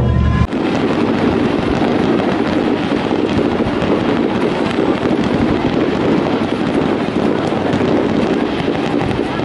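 A fireworks display: a dense, steady crackling and sputtering of many bursts, with no single big boom standing out. For about the first half second, festival music plays and then cuts off suddenly.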